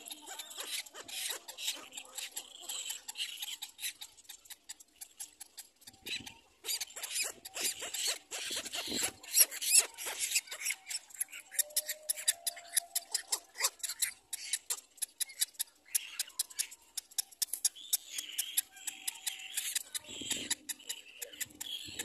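Cormorant chicks begging with rapid, high-pitched squeaky calls in quick runs. The calls come thickest in the middle stretch, while a chick is being fed by its parent.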